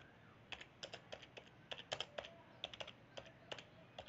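Computer keyboard typing: about twenty faint key clicks in quick, irregular succession, starting about half a second in.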